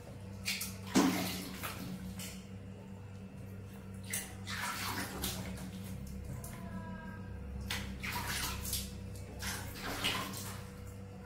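Bath water splashing and sloshing in a small tub while a baby monkey is washed, in irregular splashes over a low steady hum.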